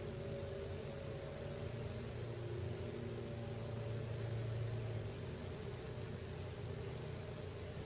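Steady low mechanical hum with a few held tones, from a forced-air heating system running through the house's ducts.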